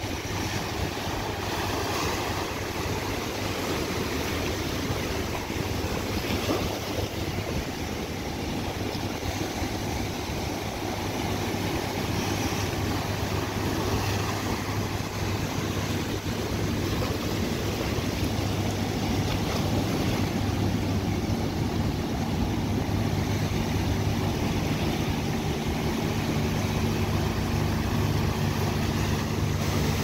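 Ocean surf breaking on rocks and washing through in a steady rush of white water, with a steady low hum underneath that gains more pitches near the end.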